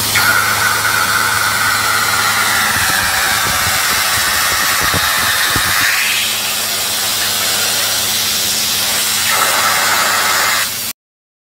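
Loud, steady hissing noise with a wavering tone running through it that rises about halfway through, cutting off suddenly near the end.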